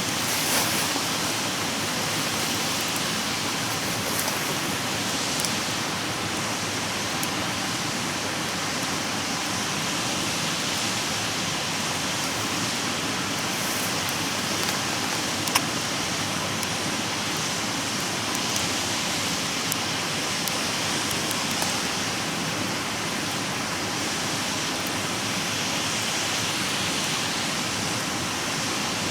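Wood campfire burning, with scattered sharp crackles and pops over a steady rushing hiss; one pop about halfway through is the loudest.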